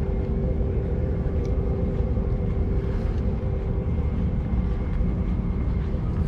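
Wind rumbling on an action camera's microphone over a steady hum.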